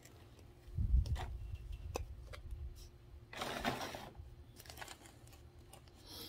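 Hands handling a potted plant on a table: scattered light clicks and taps, a low thump about a second in, and a brief rustle about halfway through.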